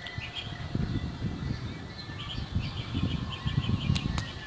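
Birds chirping in quick runs of short calls over a low, uneven rumble, with two sharp clicks near the end.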